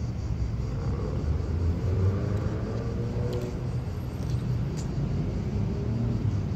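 Steady low rumble of city road traffic, with a passing engine's hum in the first half. Two faint sharp clicks, the guards' hobnailed shoes on marble, come about halfway through and near the end.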